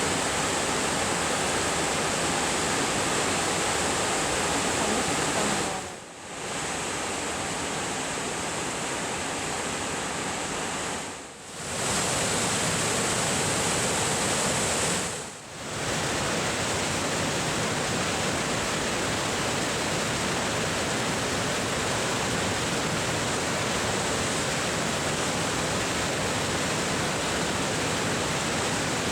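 Waterfall rushing: a loud, steady wash of falling water that briefly drops away three times, about 6, 11 and 15 seconds in.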